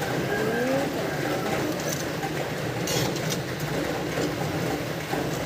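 Cireng (tapioca fritters) deep-frying in a wok of oil: a steady sizzle whose bubbling has thinned out, the sign that the fritters are cooked.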